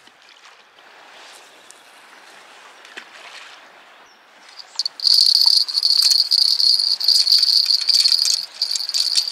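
Spinning reel being cranked to retrieve the line after a cast: a steady, high whirring rattle that starts about halfway through and briefly dips near the end. Before it there is only faint outdoor background.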